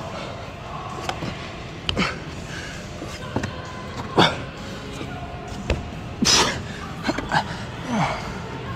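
Irregular knocks and slaps of hands and climbing shoes on holds and a bouldering wall, about nine in all, the loudest near the middle of the stretch.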